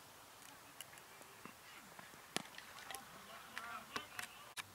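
Faint open-air ambience with distant, indistinct voices and a few scattered sharp clicks and knocks, the clearest about two and a half seconds in.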